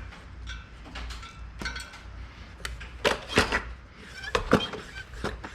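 Irregular clicks and knocks from handling gear at a bicycle wheel, the loudest pair about three seconds in.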